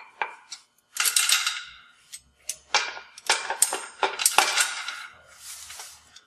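Steel chain and the metal hook and lever of a chain tensioner clinking and rattling as the tensioner is closed by hand, a rapid series of sharp metallic clinks.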